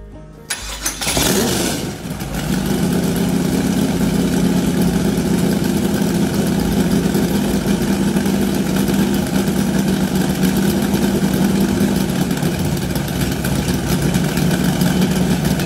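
Rat rod's 350 Chevy small-block V8 with two four-barrel carburetors comes in with a loud burst about a second in, then idles steadily through its headers.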